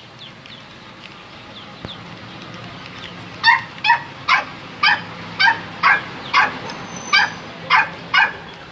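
A dog barking repeatedly, about two barks a second, starting a few seconds in.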